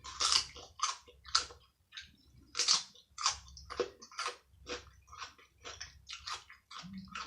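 A person chewing food close to the microphone, mouth sounds with a steady run of crisp, wet crunches about one or two a second.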